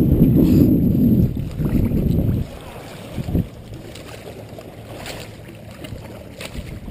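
Wind buffeting the camera microphone, cutting off suddenly about two and a half seconds in, then quiet lapping water with a short splash a little past three seconds as a hooked bluefish thrashes at the surface against the rocks.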